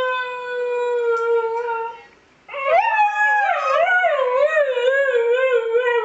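Siberian husky howling (singing): one long, steady note that sinks slightly and breaks off about two seconds in, then after a short pause a second howl that wavers up and down in pitch.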